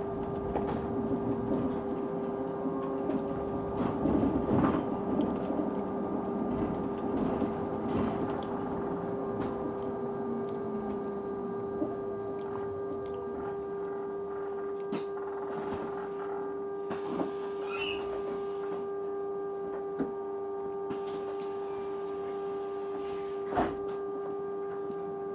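A bus giving off a weird noise that holds one constant pitch: a steady tone that never changes pitch, with fainter steady tones above it. Running and road rumble underneath it during the first half dies away, leaving the tone plus a few sharp knocks and rattles.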